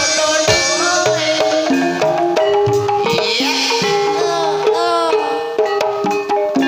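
Traditional Javanese gamelan music for a kuda kepang (ebeg) horse dance: struck metal and wooden keyed instruments and drums play steadily under a melodic line that slides up and down in pitch.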